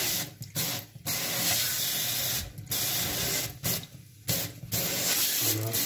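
Water hissing from a kitchen mixer tap's spray head onto a stainless steel sink. The stream breaks off briefly several times, about a second in, near the middle and toward the end, as the head is pressed and moved.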